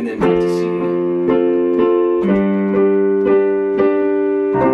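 Digital keyboard playing piano-voiced chords in the key of C, struck about twice a second and held. The bass note changes about halfway through and again near the end.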